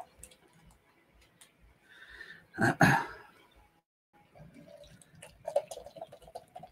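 A short, sharp noise about three seconds in, then beer poured from a can into a tall glass, glugging and fizzing through the second half.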